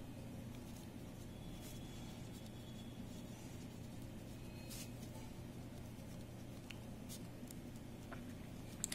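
Ballpoint pen writing on paper: faint, intermittent scratching of the pen strokes over a steady low hum.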